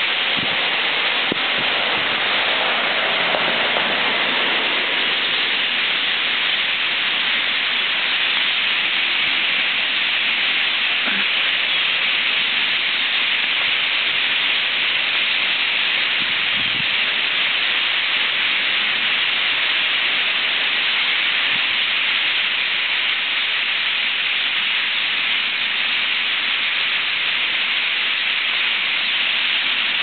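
Steady hissing chatter of a huge winter flock of European starlings massed in and over the trees, thousands of calls blending into one even din.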